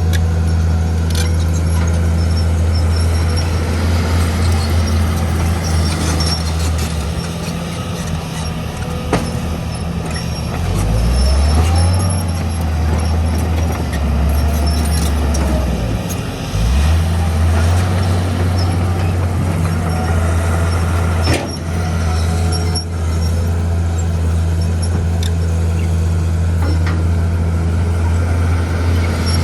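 Heavy diesel engine of earthmoving equipment running steadily. Its note sags and recovers twice near the middle, with a sharp knock about two-thirds of the way through.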